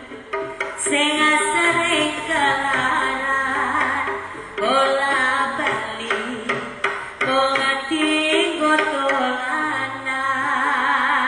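Javanese jaranan music: a singer's vocal line over hand drums and gamelan-style accompaniment.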